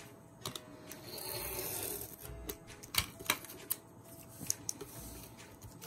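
Soft background music under paper being handled and cut: a brief scraping swell about a second in, then several sharp clicks and taps.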